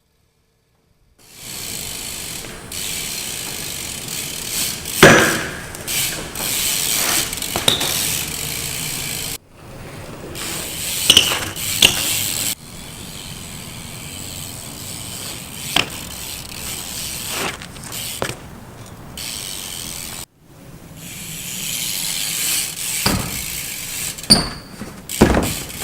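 BMX bike's Profile Mini cassette rear hub ticking rapidly as the wheel freewheels, starting about a second in and broken by two short gaps. Several sharp knocks stand out, the loudest about five seconds in.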